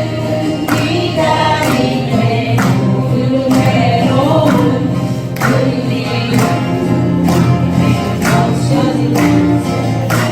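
Several voices singing together to strummed acoustic guitars, with a sharp accent about once a second keeping a steady beat.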